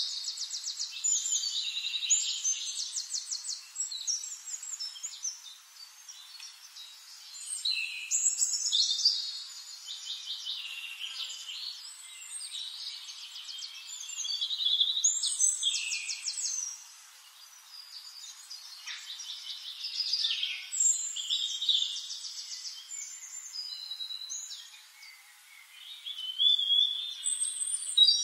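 Songbirds singing: high chirps and fast trills that come in bursts about every six seconds.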